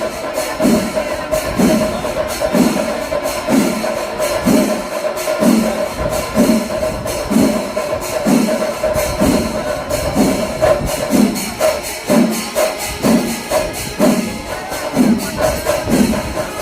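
Kerala temple-festival percussion ensemble playing: deep drum strokes about once a second under rapid clashing of small hand cymbals, with a steady held high note running through it.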